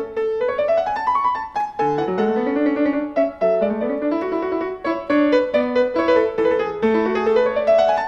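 Grand piano playing a classical concerto passage with several quick rising runs of notes, accompanied by the chamber orchestra's strings.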